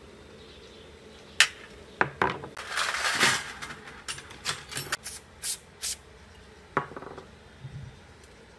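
Rusty aerator motor housing and hand tools knocking and scraping on a metal tray: a few sharp metallic clinks, a rougher scraping rattle about three seconds in, then a run of light clicks.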